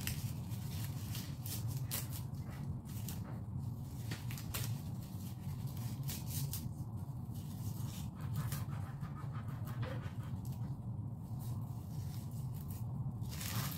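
Dried taro leaves crackling and rustling as they are torn and crumbled by hand, over a steady low hum.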